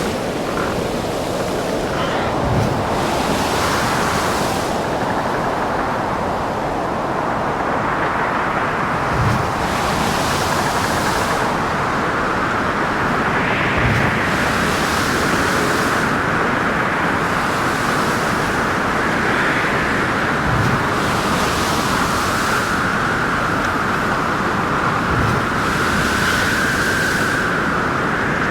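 Storm at sea: heavy waves surging and breaking in swells every few seconds under a howling wind whose pitch rises and falls. Dull low thumps come every several seconds.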